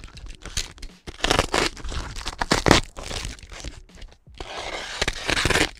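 Plastic wrap and cardboard packaging being cut and torn open with a knife, crinkling and crunching in irregular bursts, with a longer stretch of tearing near the end.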